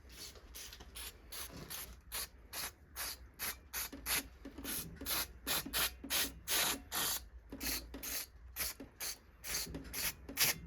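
Cleaning work on an engine part with degreaser: a long run of short hissing strokes, about two or three a second, uneven in strength.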